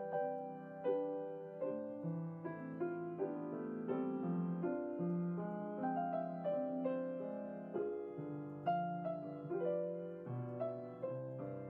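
Slow, gentle solo piano music, single notes and chords struck one after another and left to ring.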